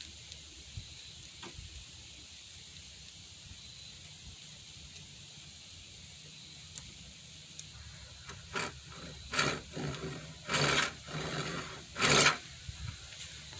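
Hand saw starting a cut in wood: after several seconds of quiet background, a few short, light strokes, then longer and louder strokes.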